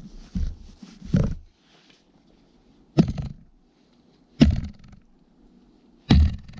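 Four sharp wooden thuds, a second and a half to two seconds apart: the butt of a freshly re-hung axe handle struck down onto a frozen spruce log, driving the old Welland Vale True Temper fire axe head tighter onto the new handle.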